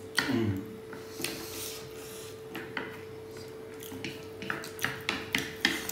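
Wooden chopsticks clicking and scraping against plates as noodles are picked up, a scattered run of short clicks that comes more often toward the end.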